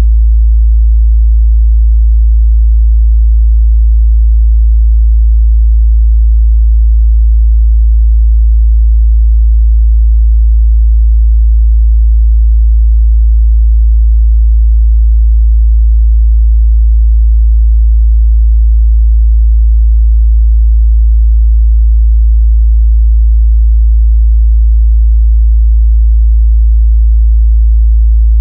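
A steady, loud 55 Hz sine-wave test tone, one low unchanging bass hum used to check a speaker's or headphone's mid-bass response.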